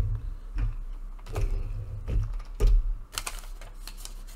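Plastic toy ATV handled on a tabletop: a few dull knocks in the first three seconds, then a quick run of light plastic clicks and taps near the end as it is set down and handled.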